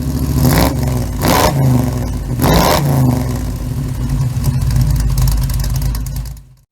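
Small-block Chevy 350 V8 running and being revved in sharp blips, the loudest about a second and a half and two and a half seconds in. The sound stops abruptly near the end.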